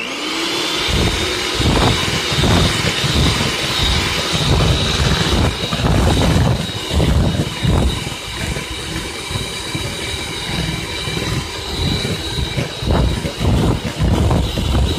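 Electric hand mixer switching on and running at speed, its motor whine rising briefly as it spins up, then holding steady, with uneven low rumbling as the beaters work eggs into creamed butter and sugar in a plastic bowl.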